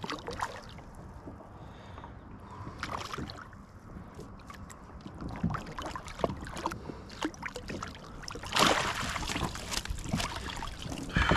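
Water splashing around the kayak as a hooked catfish thrashes at the surface, with wind on the microphone and small knocks of gear. A louder burst of splashing comes about nine seconds in, as the fish is scooped into the landing net.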